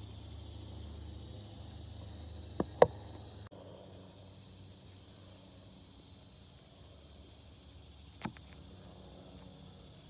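Steady faint outdoor background noise, broken by two sharp clicks in quick succession about a quarter of the way in and a single softer click later.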